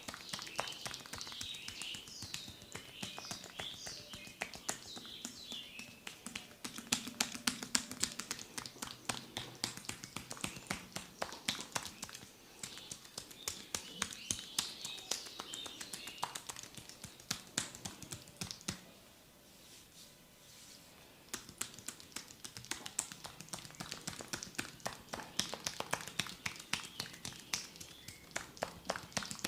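Fast, sharp percussive tapping of a massage on a person's body, going on almost without break and easing off for a couple of seconds about two-thirds of the way through.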